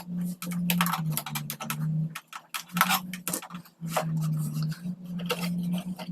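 3D-printed RC tank model running: a low hum that steps back and forth between two close pitches, with repeated sharp plastic clicks and clatter over it.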